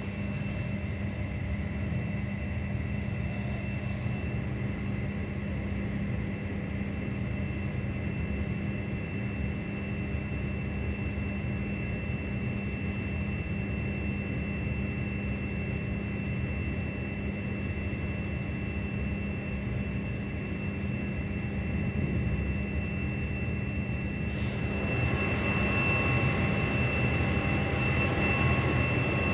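Heavy tropical downpour heard as a steady, low rumbling roar mixed with road traffic, with a faint steady whine above it. About 25 seconds in it swells louder and brighter.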